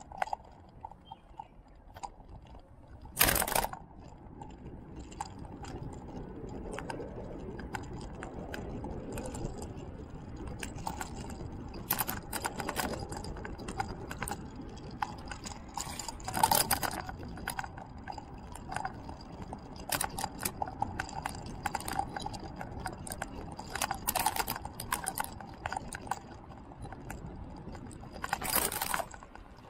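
Rattling and clicking from a two-wheeler ride over paved road, with a steady rumble of wind and road noise and several louder knocks as it goes over bumps.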